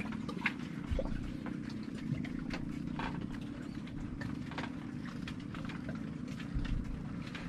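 A steady low engine hum, with irregular light clicks and taps scattered over it.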